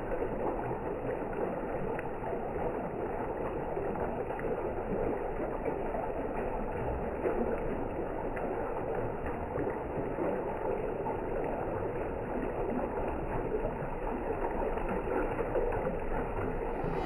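Mountain valley stream flowing: a steady rush of running water.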